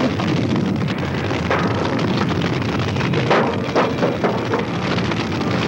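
Large building fire burning: a steady rush of flames with a few sharper crackles.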